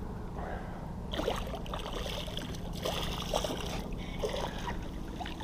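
Water splashing and trickling beside a kayak, with a few short splashes, while a hooked smallmouth bass is reeled in close to the boat.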